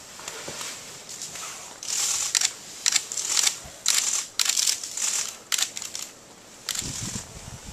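Nylon parka fabric rustling close to the microphone in a string of short, irregular scratchy bursts. A low rumble joins near the end.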